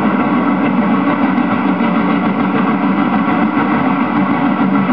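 Diesel locomotive engine idling steadily, a recorded background sound laid over the model railway scene.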